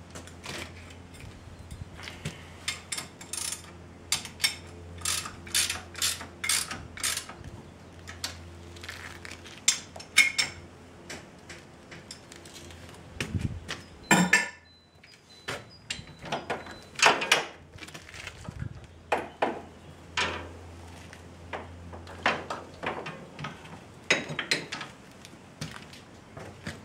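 Irregular metal clanks and clicks of steel hitch parts and hand tools as a homemade rear lift is fitted to an ATV, with a heavier knock about halfway through.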